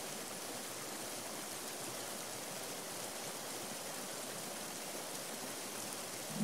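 Steady rush of a shallow, fast-flowing river running over rocks and small cascades.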